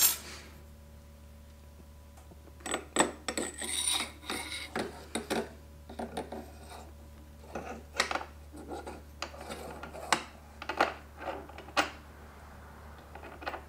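Small metal fork parts clinking, clicking and scraping as they are handled and fitted by hand, in irregular knocks that begin about two and a half seconds in.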